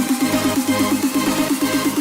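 Background electronic dance music with a fast repeating synth figure.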